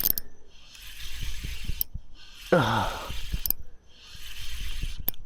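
Fishing reel being wound in quickly with a fish on, its gears rattling and ticking as the line comes in. About two and a half seconds in, a short falling vocal exclamation.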